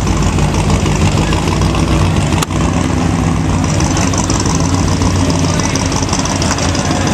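Car engine idling steadily with a deep, even note, with one brief break about two and a half seconds in.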